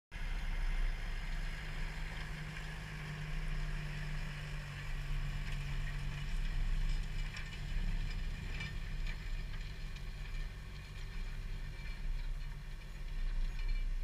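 John Deere 6120 tractor engine running steadily under load while pulling a three-furrow plough, with a low wind rumble over it.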